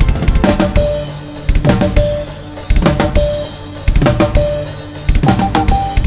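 A drum kit beat, bass drum and snare, played together with Morse code beeps: short and long tones keyed over the rhythm. About five seconds in, the beeps move to a higher pitch.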